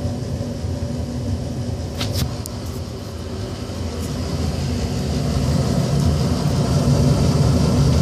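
1995 Tempstar SP80 gas furnace running just after ignition: the gas burners firing and the draft inducer fan running make a steady low hum that grows louder about halfway through. A sharp click about two seconds in.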